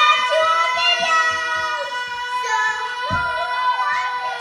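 Children singing loudly over a steady, held background tone.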